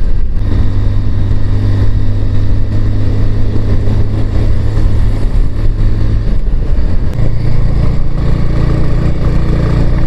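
Motorcycle engine running under way on the road, with wind noise on the microphone. The engine note steps up in pitch a little past six seconds in.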